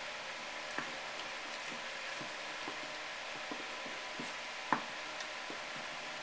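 Rubber tire balls being pushed and squeezed into an ATV tire, giving scattered light knocks and rubbing over a steady hiss, with one sharper knock a little under five seconds in.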